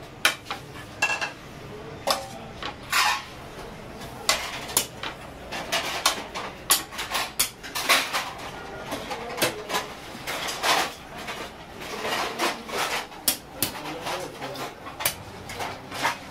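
Metal serving spoon clinking and scraping against a wide metal rice pan and ceramic plates as pulao is dished out, in quick irregular clanks.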